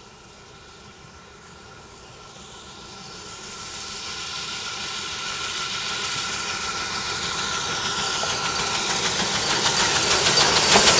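Steam tank locomotive hauling coaches along the line, its exhaust and hiss growing steadily louder as it approaches, with regular exhaust beats coming through clearly as it draws close near the end.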